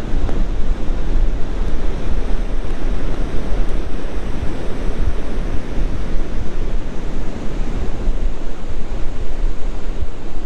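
Ocean surf washing steadily with wind buffeting the microphone, a heavy low rumble throughout.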